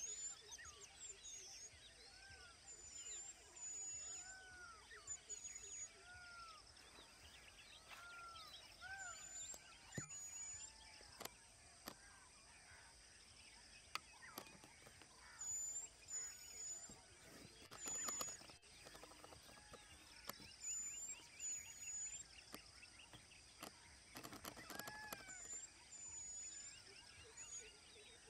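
Faint natural ambience of several birds calling: repeated short arched whistled notes, thin high peeps and fast chittering trills. A few sharp clicks or snaps come near the middle.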